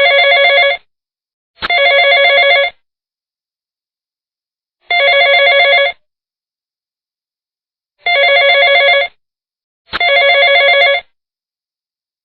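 Telephone ringing: five warbling rings of about a second each, some coming in pairs, with silent gaps between them.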